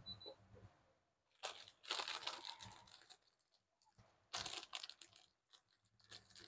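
Packaging crinkling and rustling as it is handled, in two short spells.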